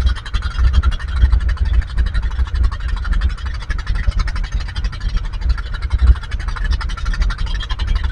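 A small fishing boat's engine running steadily under way while trolling, a low rumble with a fast, even rattle.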